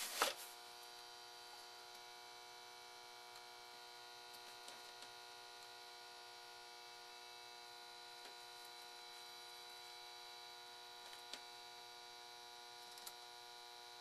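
Steady electrical hum with several even tones, faint but unbroken. A short sharp noise comes right at the start, and a few faint ticks come near the end.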